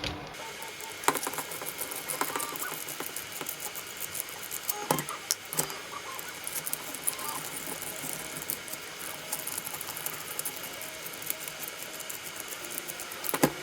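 Light clicking and rattling of small plastic RC truck parts and metal screws being handled and worked loose, with a few sharper clicks about a second in, around five seconds in and near the end.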